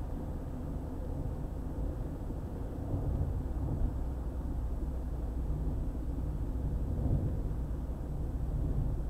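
Steady low rumble of a car driving along a highway, road and engine noise, swelling slightly a couple of times.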